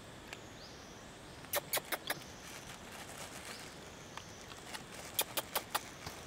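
Sharp light clicks and taps close to the microphone, three about a second and a half in and four more a few seconds later, over faint high chirps in the background.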